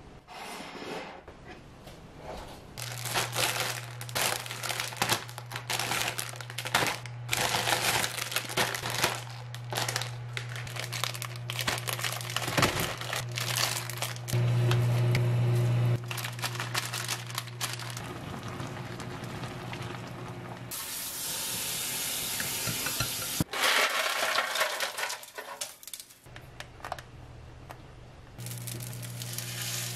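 Kitchen handling sounds: a metal spoon clinking and scraping on a plate and glass dish, and the plastic wrapper of a Paldo Bibimmyeon instant-noodle packet crinkling as it is torn open. A steady low hum runs under most of it.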